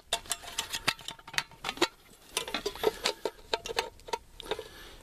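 Metal mess kit pots and lids being handled and set down: a scattered series of light clicks, taps and knocks, some in quick clusters.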